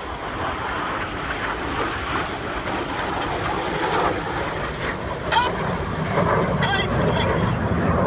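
Jet noise from the Red Arrows' BAE Hawk T1 jets flying the corkscrew: a steady rushing sound that grows gradually louder as the aircraft pass.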